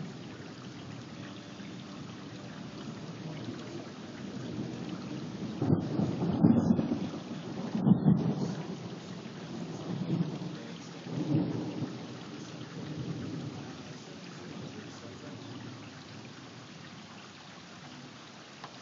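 Thunder rolling over steady rain. The rumble swells about six seconds in, with two loudest peaks close together and two smaller ones over the next few seconds, then fades back to the rain.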